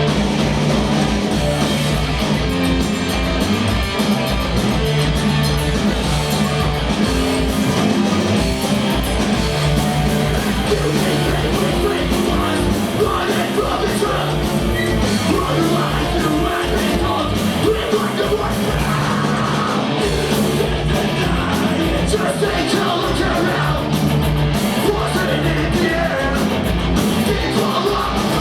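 Punk rock band playing loud and fast live, with drums, guitar and yelled vocals.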